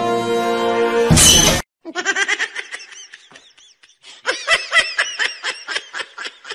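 Orchestral music with timpani ends in a loud half-second burst of noise about a second in; after a brief silence, high-pitched giggling laughter follows in quick bursts, several a second.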